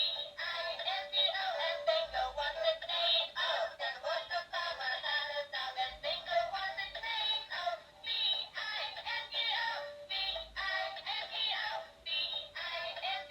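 Music with high, synthetic-sounding singing, thin and without any bass.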